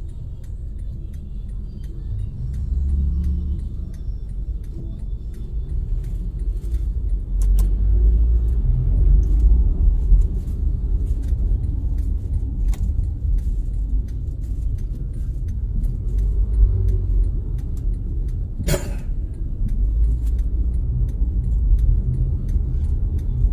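Road noise from a vehicle driving along a concrete road: a steady low rumble of engine and tyres with scattered light clicks and rattles. A brief louder rushing noise comes about nineteen seconds in.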